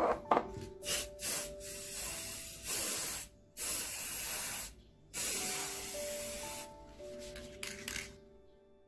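Aerosol can of temporary hair colour spray hissing in a run of bursts, some short and several over a second long, as colour is sprayed onto a synthetic wig; the spraying stops about eight seconds in.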